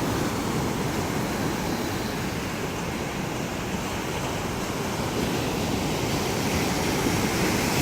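Ocean surf washing onto the beach: a steady rushing wash of waves with no separate strokes.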